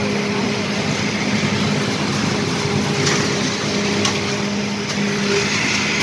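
A small engine of construction machinery runs steadily with a low, even hum, at a concrete pour. Its hum fades about five and a half seconds in. A few sharp knocks come about three, four and five seconds in.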